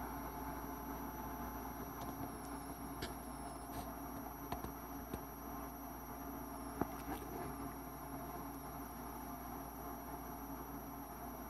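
Quiet room tone: a steady hiss with a faint, constant high-pitched whine, broken by a few light scattered clicks, the clearest about seven seconds in.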